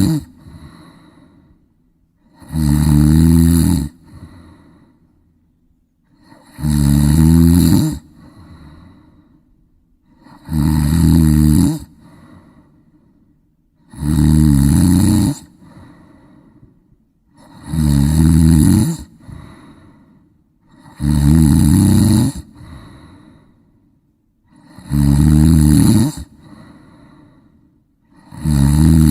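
A sleeping person snoring steadily. Each loud snore lasts about a second and a half and is followed by a fainter breath out, one roughly every four seconds.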